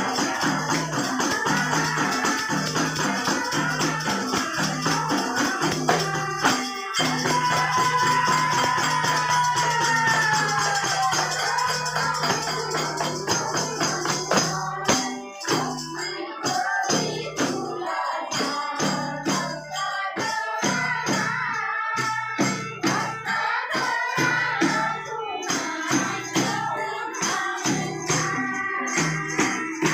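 Devotional bhajan-kirtan music: singing over shaken percussion. About halfway through, the steady shaking gives way to separate, sharper beats.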